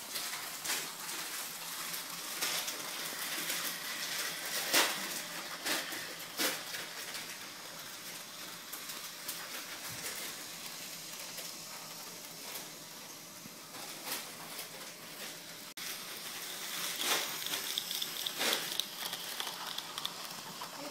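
HO-scale model trains running on their track: a steady light rattling hiss with scattered sharp clicks.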